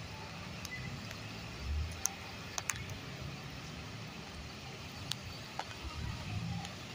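Mercedes-Benz OH 1526 coach's diesel engine running at low revs as the bus creeps forward in stop-and-go traffic, a steady low rumble. A few light clicks cut through it about two, two and a half, and five seconds in.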